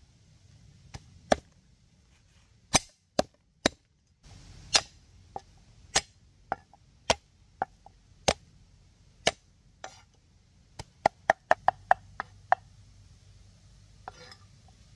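Chopping with a blade: sharp single strokes about every half second, then a quick run of about nine strokes just past the middle.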